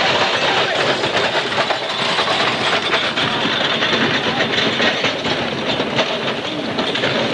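A field gun and its carriage being run across hard ground by a gun crew. The wheels, metal fittings and many running boots make a dense, continuous rattling clatter.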